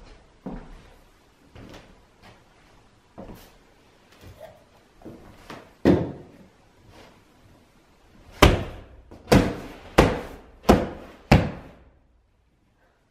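A person hitting a large fabric beanbag cushion with her hands: five loud, sharp blows in quick succession, about two every second and a half, after some scattered quieter knocks and one sharper knock. The blows are her venting anger, which feels good to her afterwards.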